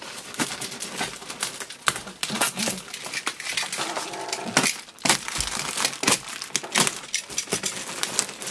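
Clear plastic wrap and tape being pulled and peeled off a cardboard box, with irregular crinkling and crackling throughout.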